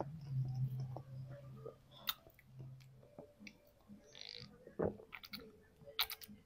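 Close-up eating sounds: mouth clicks and smacks of chewing, with a low steady hum for the first three seconds and a short slurping sip from a bowl about four seconds in.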